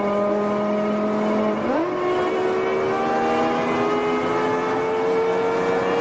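BMW E60 M5's V10 engine heard from inside the cabin, pulling hard at speed. About two seconds in the revs jump up sharply, then climb steadily as the car accelerates.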